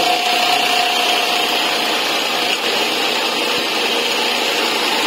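Mattress tape-edge machine running steadily: its Typical sewing head stitching binding tape around the mattress edge with a loud, even mechanical noise.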